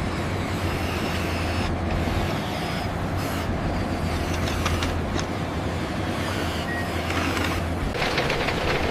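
Heavy construction machinery engines running with a steady low hum and mechanical noise, growing rougher and more clattery near the end.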